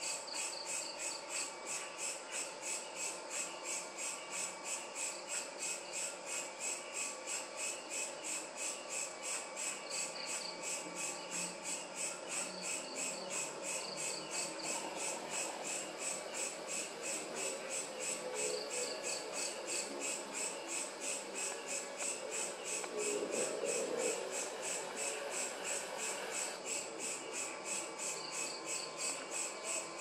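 Crickets chirping steadily outdoors at night, a high pulsing trill repeating about three times a second. A fainter low wavering sound swells and fades about three quarters of the way through.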